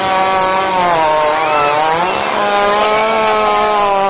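Hippopotamus breaking wind: one long, loud, pitched fart whose tone wavers slightly without a break.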